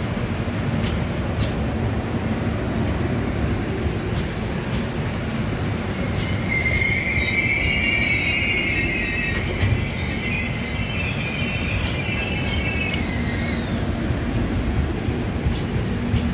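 LHB passenger coaches rolling past with a steady rumble and light clicks from the wheels over rail joints. From about six seconds in until about thirteen seconds, a high-pitched wheel squeal rises over the rumble, then fades.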